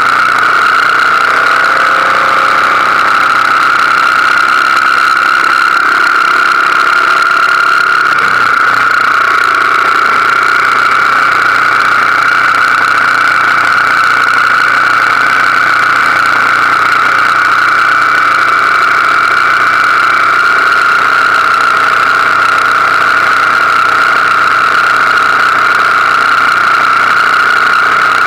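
BMW R1200GS Adventure's flat-twin engine running steadily at road speed under a constant high drone. A lower rumble drops away about eight seconds in.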